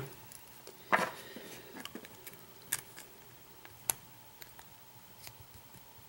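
Small metal clicks and ticks of a lock and its key being handled, the loudest click about a second in and two sharp ticks near three and four seconds.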